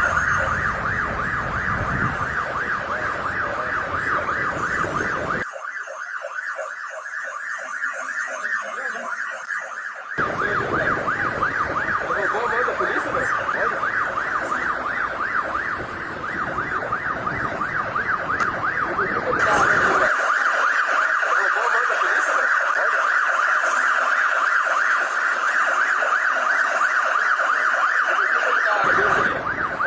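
Motorcycle anti-theft alarm sounding without a break, a fast warbling siren-like wail that can pass for a police siren.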